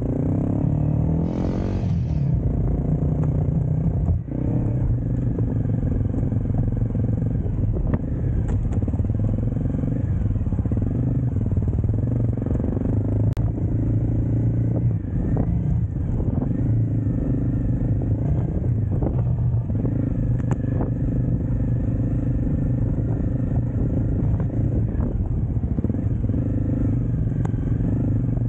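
Motorcycle engine running steadily while riding off road, its note dipping briefly and picking up again a few times.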